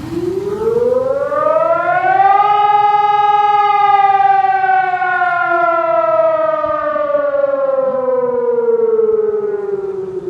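Civil-defence warning siren sounding in a test alarm: one loud tone rises in pitch over about two seconds, holds briefly, then falls slowly.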